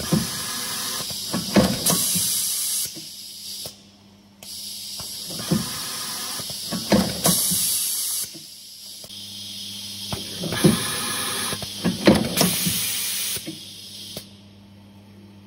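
Bench-top wire stripping and contact crimping machine cycling: stretches of loud air hiss that switch on and off every few seconds, with sharp mechanical clacks from the stripping and crimping strokes in several clusters.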